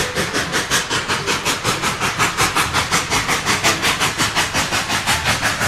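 Steam locomotive under way, its exhaust chuffing in a fast, even rhythm of several beats a second, with a hiss of steam.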